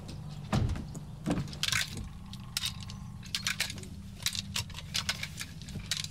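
A car's rear door opening with a thump about half a second in, then a seat belt being pulled out and handled: short clicks and rustles of the webbing and buckle, over a steady low hum.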